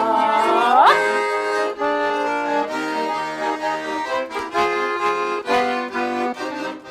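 Garmon (Russian button accordion) playing an instrumental interlude between verses of a folk song: a quick melody over chords. The singers' last held note slides upward and stops about a second in.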